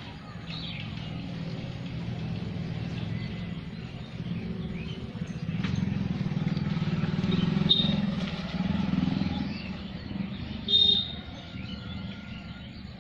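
A motor vehicle's engine running, swelling up for a few seconds near the middle and then fading, as though it drives past. Birds chirp briefly over it, loudest near the end.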